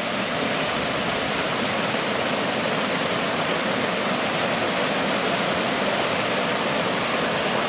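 Small mountain stream rushing over a rocky cascade: a steady, even rush of water.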